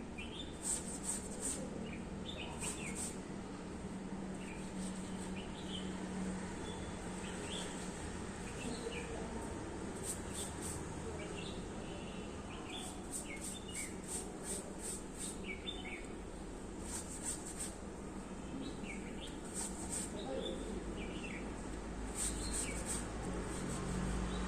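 Birds chirping in short, scattered calls and quick trills over a steady outdoor background hiss.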